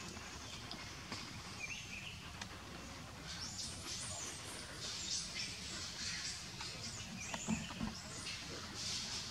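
Forest ambience with birds chirping high and intermittently, busier from about three seconds in. A short low thump sounds a little before the end.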